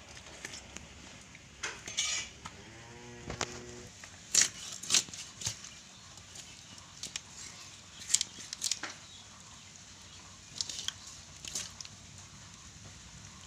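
Fish being cut on a boti, a curved floor-standing blade: irregular sharp scraping clicks as the blade goes through scales and bone. A short animal call sounds about three seconds in.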